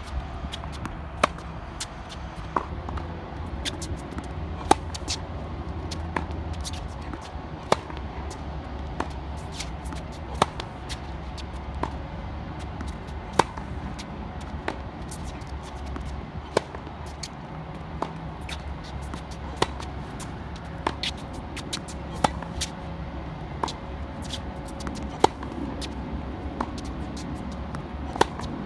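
Tennis ball struck by racquets in a forehand baseline rally on a hard court. A sharp, loud pop comes about every three seconds from the near player's forehand, with fainter hits and ball bounces in between, over a steady low background rumble.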